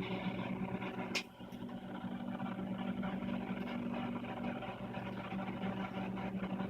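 Microwave oven running with a steady low hum, heating a plate of carrot chips. One sharp snap comes about a second in.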